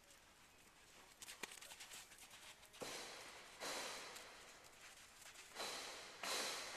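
A horse moving about: four soft scuffing sounds in the second half, each starting sharply and fading, after a few light ticks.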